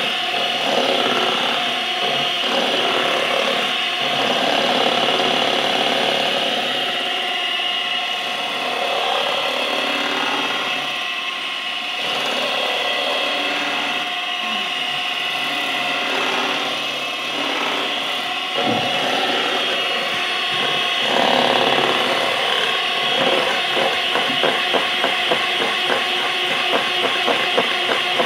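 Scarlett electric hand mixer running steadily, its beaters whisking cream in a steel bowl. Over the last several seconds the sound turns into a fast, even rattle.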